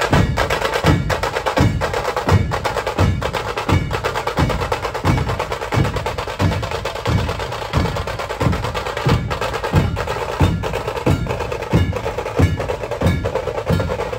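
Dhol-tasha ensemble playing: large barrel dhols strike a heavy beat about every 0.7 seconds while tasha drums play a fast, dense roll over it. The playing stops suddenly at the very end.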